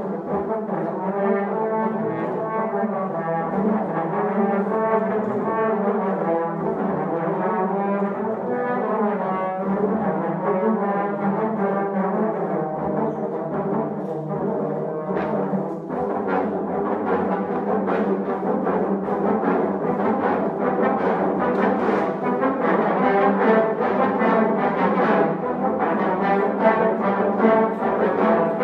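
Trombone choir playing together in full harmony: sustained chords at first, turning about halfway through into shorter, accented repeated notes that grow a little louder toward the end.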